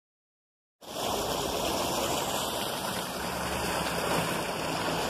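Silent for the first second, then the steady rush of water pouring out of a drainage pipe into a polluted ditch.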